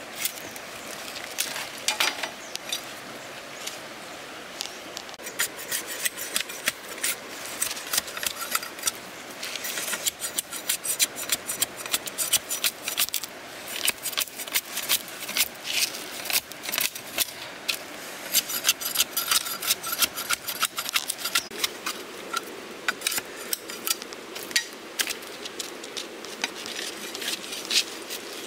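Machete blade splitting and shaving a bamboo pole: rapid, uneven scraping strokes with sharp clicks of the blade on the cane, sparse at first and dense and continuous from about five seconds in.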